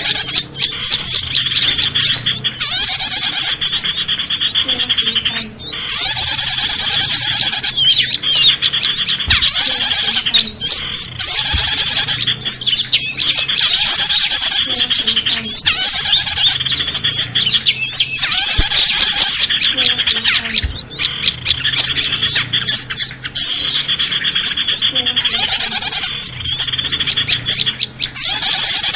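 Bird-lure recording of many small birds chirping and twittering at once, loud and dense, in rapid high chirps that swell and drop back every second or two, played to draw in all kinds of wild birds.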